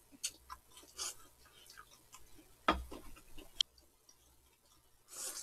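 Quiet eating at the table: scattered small clicks of chopsticks and dishes and mouth noises, a single louder knock a little before the middle, and near the end a short noisy slurp of noodles.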